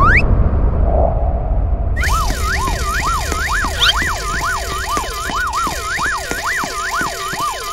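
Cartoon ambulance siren sound effect: a wailing tone that sweeps up and down about twice a second, in two overlapping layers, starting about two seconds in. Before it, the low rumble of an explosion dies away.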